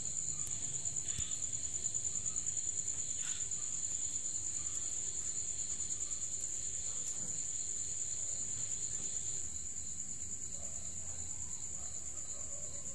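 Crickets trilling: a steady high-pitched chirring with a fast pulse, a little quieter for the last few seconds.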